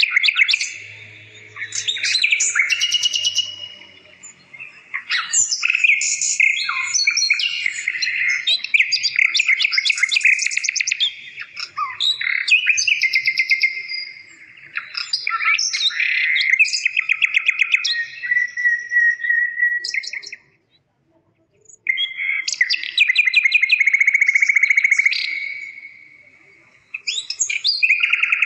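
A songbird singing long phrases of chirps and rapid trills, with a brief pause about three quarters of the way through.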